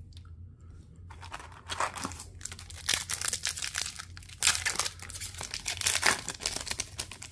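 A hockey card pack's wrapper being torn open and crinkled: a run of crackly rips and rustling that starts about a second in.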